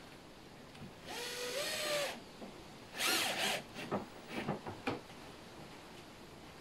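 Cordless drill driving screws into a metal drawer-slide runner. About a second in, the motor runs for about a second with a whine that steps up in pitch. A louder, noisier run comes at about three seconds, followed by several quick short blips of the trigger as the screw is snugged down.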